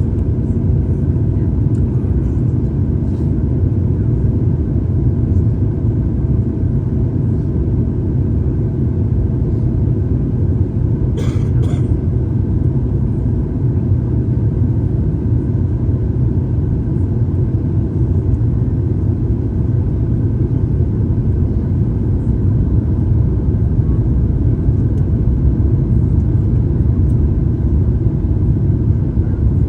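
Steady low rumble of jet engine and airflow noise inside the cabin of a Boeing 737 airliner on its landing approach. A couple of brief clicks sound about eleven seconds in.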